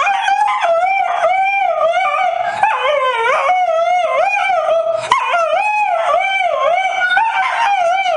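French bulldog howling: one long, high howl whose pitch wavers up and down over and over, with only a couple of brief breaks.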